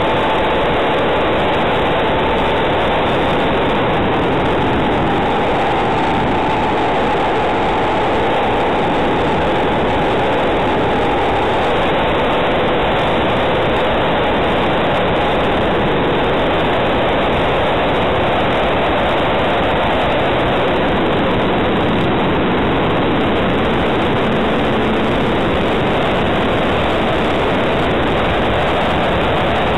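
Steady rushing wind and propeller noise picked up by a camera mounted on a small aircraft in flight, with a faint motor whine that wavers slightly in pitch.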